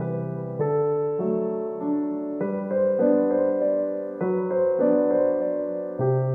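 Background piano music: a slow tune over held chords, with a new note or chord struck about every half second.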